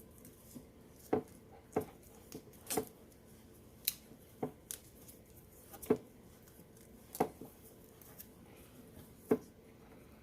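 Irregular sharp clicks and taps, roughly one a second, from hands working on a truck headlight assembly's wiring and connectors.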